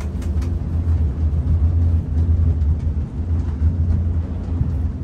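A steady low rumble, loud and even, with a few faint clicks over it.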